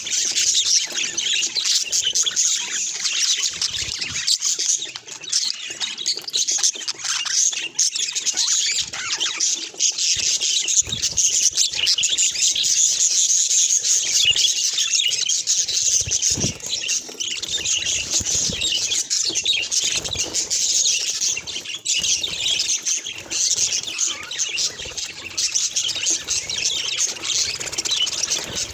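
Budgerigars chirping and warbling continuously in fast, busy chatter.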